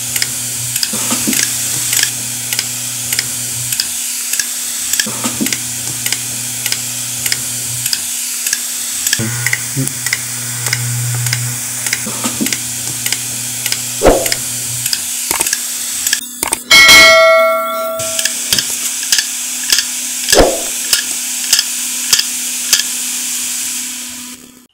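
A hard disk drive running with its cover off, platter spinning: a steady motor hum with regular ticking, about three ticks a second. A loud ringing tone sounds once, about two-thirds of the way in.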